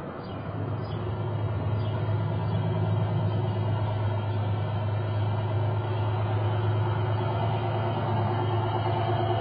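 A steady low motor hum, joined by a few fainter, higher steady tones. It grows louder over the first two seconds, then holds even.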